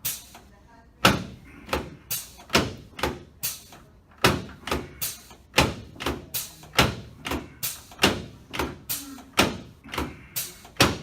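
A rapid run of about two dozen sharp knocks, two or three a second in uneven groups, each dying away quickly. They come from hands-on chiropractic work on a patient.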